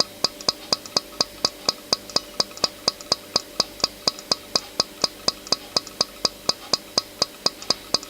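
A fast, perfectly even train of sharp clicks, about four to five a second, over a steady hum.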